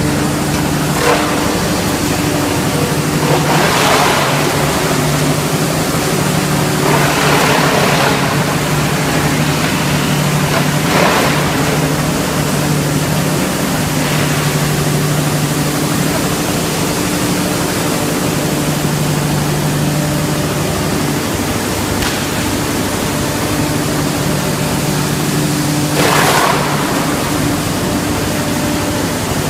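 Wood-chip hammer mill crusher and its blower running on electric motors: a loud, steady rushing of air and sawdust over a low hum, swelling louder for a moment several times.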